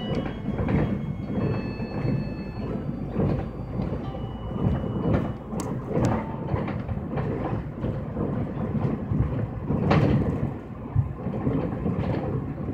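Ride noise inside a moving public transport vehicle: a steady low rumble with scattered rattles and knocks, the sharpest about ten seconds in.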